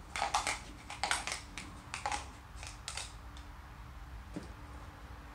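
Dice clattering inside a plastic dice-stacking cup as it is slid over the carpet to scoop them up. There are clusters of quick clicks over the first three seconds, then only a few faint ones.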